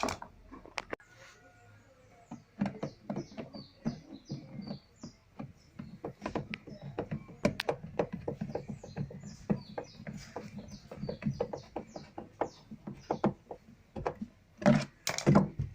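Irregular clicks and taps of metal screws and a screwdriver as screws are fitted back into a twin-tub washing machine, with louder knocks near the end. A bird's short high chirps repeat through the middle.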